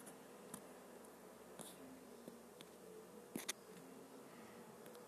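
Near silence: faint room tone with a few short, faint clicks, two close together about three and a half seconds in.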